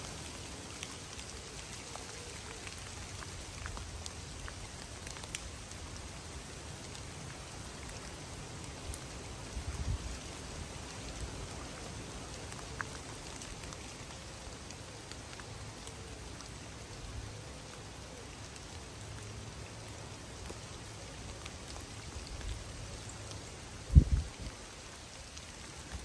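Steady rain falling on the surface of a slow river. Low thumps break through twice: a small one about ten seconds in, and a louder one near the end.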